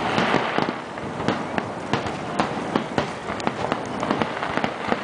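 Aerial firework shells bursting in quick succession, a dense run of sharp bangs and pops, with a thick crackle of glittering stars in the first second.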